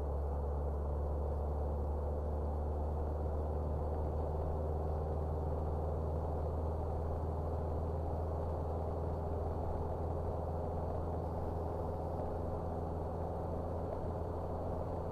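Steady engine drone and road noise from a vehicle cruising at around 40 mph: an even low hum with a few held tones above it, unchanging throughout.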